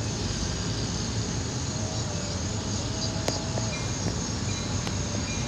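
Low, steady rumble of a train approaching slowly down the line toward a grade crossing, under a constant high insect drone, with a few faint clicks.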